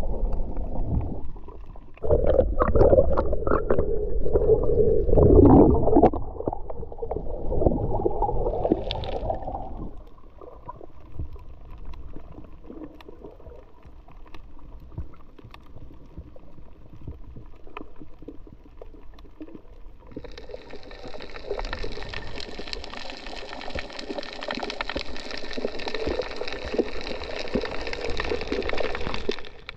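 Muffled underwater water noise, rumbling and gurgling, picked up by a camera underwater: loud for the first ten seconds, then quieter. About twenty seconds in, a steady hum of several pitches joins and runs until it cuts off suddenly.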